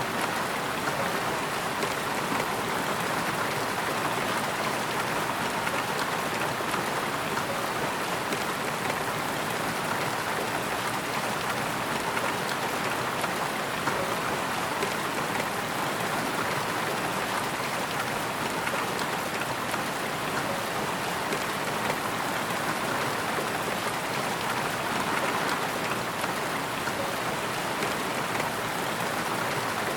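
Steady rain falling on a surface, an even hiss of many drops.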